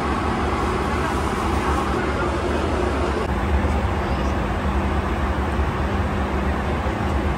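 Steady cabin noise of a Boeing 757 in flight: an even rush of airflow and engine drone with a low hum.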